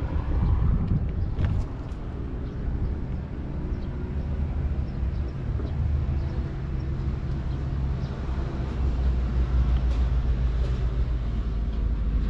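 A 2009 Toyota Yaris E's 1.5-litre four-cylinder engine idling with a steady low hum, with a few light clicks.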